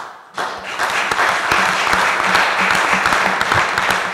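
Audience applauding: a dense patter of clapping hands that builds within the first half second and starts to thin near the end.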